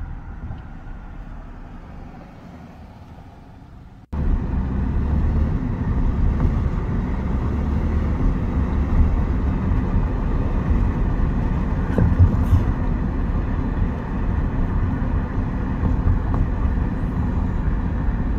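Road noise of a moving car heard from inside the cabin: a steady low rumble. It fades over the first few seconds, then cuts suddenly to a louder rumble about four seconds in.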